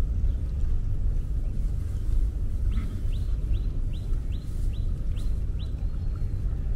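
A bird calling a quick series of short rising chirps, about three a second, starting a little before the middle and stopping near the end, over a steady low rumble.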